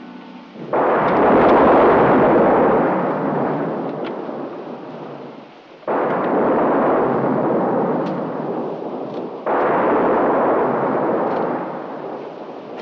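Three sudden loud crashes about five and four seconds apart, each fading away over three or four seconds.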